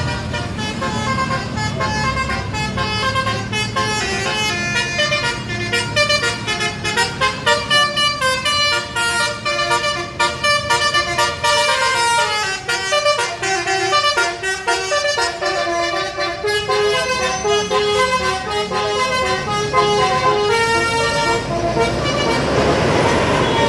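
Indonesian bus 'telolet' multi-tone air horn playing a quick tune of stepped notes, over the low rumble of the bus engine. A rushing noise swells near the end.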